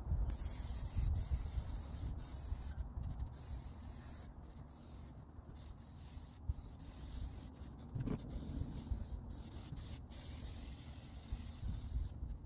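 Aerosol spray paint can hissing as paint is sprayed, in long bursts broken by short pauses about every second, over a low rumble.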